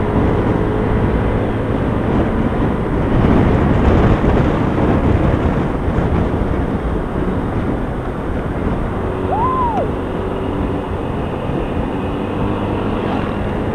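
Motorcycle riding steadily at road speed: a constant engine hum under wind and road noise. A short rising-and-falling tone sounds once about nine seconds in.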